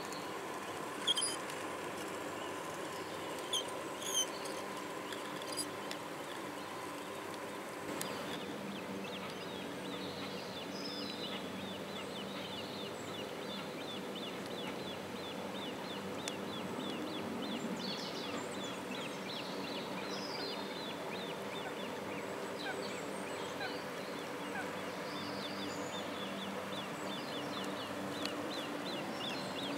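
Birds chirping and waterfowl calling over a steady hum, with a fast, faint ticking in the later part.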